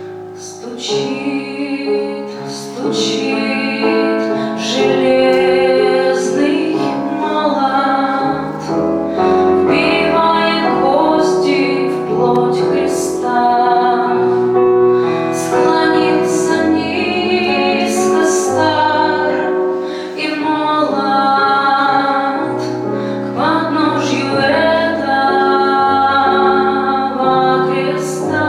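A woman singing a song in a trained voice, with piano accompaniment.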